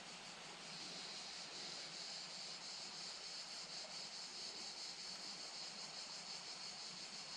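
Insects chirring steadily at a high pitch with a fine, even pulsing, growing stronger about a second in, over a faint background hiss.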